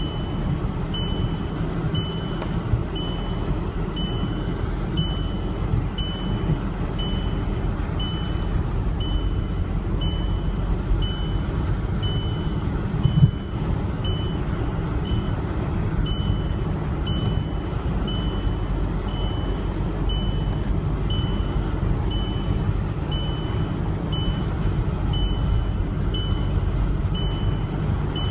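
Inside a car in hurricane-force wind: a steady low rumble of the vehicle and the gale buffeting it. A short high electronic warning beep repeats evenly, slightly faster than once a second, and a single knock sounds about 13 seconds in.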